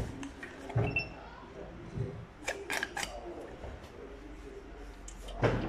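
Sharp plastic clicks and knocks from a large hand syringe being handled and emptied of old brake fluid into a metal drip tray, with a louder knock near the end.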